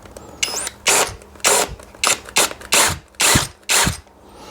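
Short abrasive strokes on metal, about eight in quick succession with brief gaps, as the inside face of a part marred by an Allen key is smoothed down.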